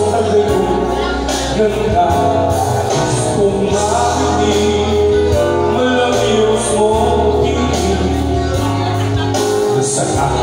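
A singer singing into a handheld microphone over accompanying music with a steady bass line.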